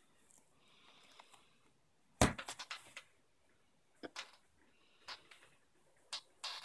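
A spiral-bound photo book being closed and handled. About two seconds in there is a sudden slap of pages and cover, with a quick run of clicks after it, then a few lighter taps near the end.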